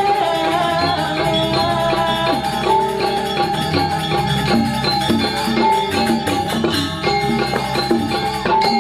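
Balinese gamelan accompaniment for a dance-drama: a held, sliding melody line over steady, dense percussion with rattling strokes.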